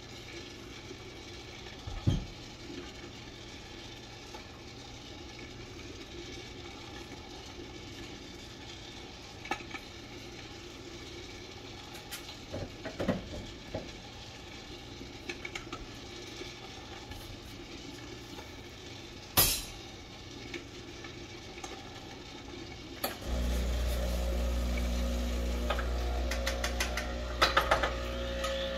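Metal clinks and a few sharp knocks of a portafilter and espresso tools being handled at the counter, then about 23 seconds in an espresso machine's pump starts with a steady hum as the shot begins.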